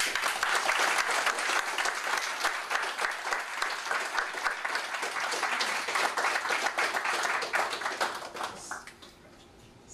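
A group of people applauding, many hands clapping steadily together, dying away about nine seconds in.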